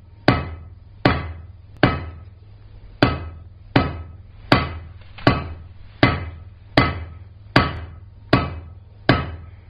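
Rounding hammer striking a hot 3/8-inch square mild steel bar on an anvil to draw out a taper: about twelve blows in a steady rhythm, each followed by a short metallic ring.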